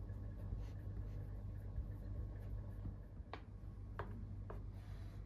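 Hands pressing and smoothing soft mashed-potato dough on a wooden board, then a knife cutting down through the dough onto the board: three sharp taps about half a second apart, over a low steady hum.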